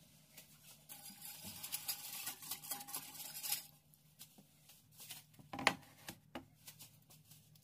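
Wire whisk beating a spice marinade in a glass bowl, a fast run of metal scraping and clinking against the glass for about two and a half seconds. Then scattered taps and one sharp knock as a wooden cutting board is set down on the table.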